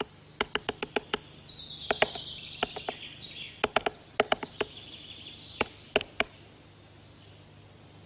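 Great spotted woodpecker chiselling at its nest hole in hard tree wood: sharp single pecks in short, irregular groups of two to four, stopping about six seconds in. Another bird twitters faintly in the background.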